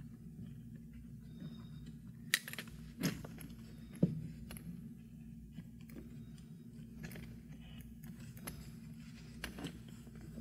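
Handling noise from tying thin cord around leather on a wooden hiking stick: rustling with a few sharp clicks and knocks, the loudest three in the first half, over a steady low hum.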